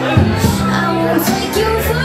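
Live dance band playing an instrumental stretch, with held bass notes and sharp percussive hits over the top.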